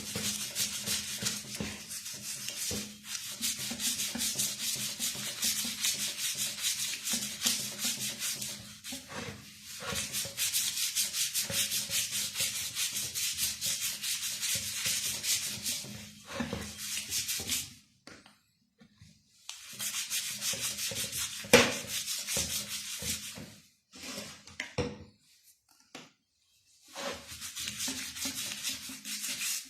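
Toothbrush scrubbing a CG 125 motorcycle's rear wheel hub wet with cleaner, quick back-and-forth bristle strokes over the metal to lift dust and rust. The scrubbing stops briefly twice, and a sharp tap is heard a little after the first break.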